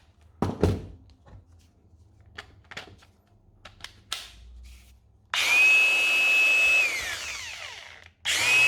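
A few handling clicks and knocks, then a cordless angle grinder running on a fitted Makita battery is switched on briefly: a steady high whine for about a second and a half, then a falling whine as the disc spins down. It is switched on again near the end and starts to spin down once more.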